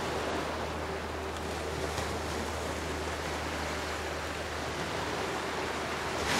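Steady rushing shore ambience of gentle surf washing against rocks, with a low steady hum beneath it.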